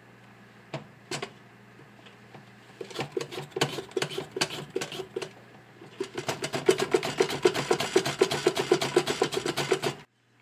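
A carrot being sliced on a handheld mandoline slicer: quick back-and-forth scraping strokes against the blade, in a fast, even rhythm that starts about three seconds in and becomes continuous from about six seconds, stopping just before the end. A couple of sharp knocks come about a second in.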